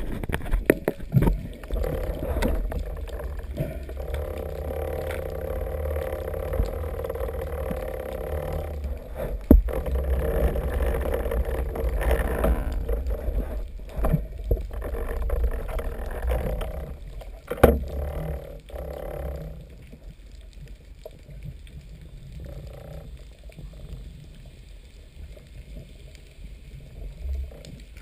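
A boat engine running steadily, a low rumble with a humming tone, with a couple of sharp knocks. It drops away to a quieter rumble about two-thirds of the way through.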